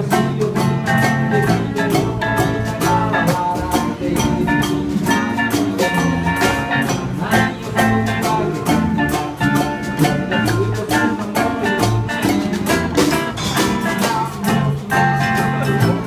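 Live acoustic street band playing an upbeat Hawaiian-style tune: strummed ukuleles and acoustic guitars over an upright bass and a small drum, with a steady, even rhythm.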